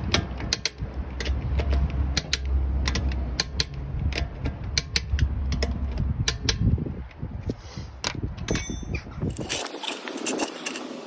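Ratchet wrench clicking in irregular runs as the brake caliper bolts are wound in and tightened, over a low rumble that stops near the end.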